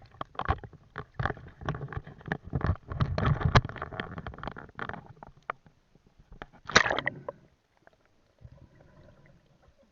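A dense run of irregular knocks and clatters for most of the clip, loudest a little before the end, then dying away to faint sounds.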